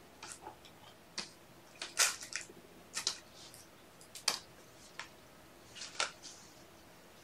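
A series of light, sharp clicks and rustles at irregular intervals, about ten of them, the loudest about two seconds in.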